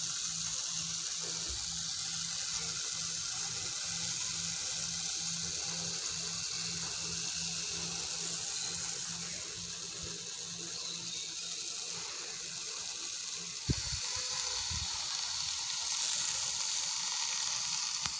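Homemade pressure spray bottle, made from a plastic soda bottle, hissing steadily as its nozzle sprays a continuous fine jet of water. There is a brief low thump about three quarters of the way through.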